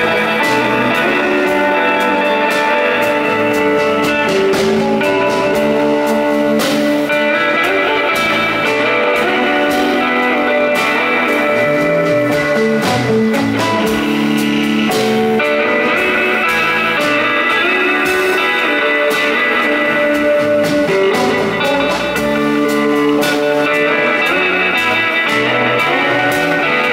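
Live rock band playing an instrumental passage: electric guitars over bass and drums, with frequent cymbal hits.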